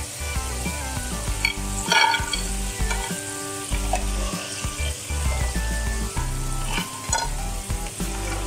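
Potato fries sizzling in hot oil in a kadhai, with a mesh skimmer scooping and scraping through the oil as the fries are lifted out. Soft background music with sustained notes plays underneath.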